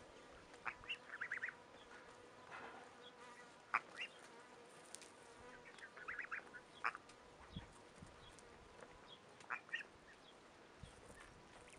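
Scattered short calls of domestic fowl, faint, with single notes and two quick rattling runs about a second and six seconds in, over a faint steady hum.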